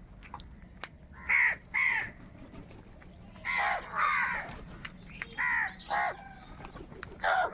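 Crows cawing: about seven short, harsh caws, several coming in pairs, from more than one bird.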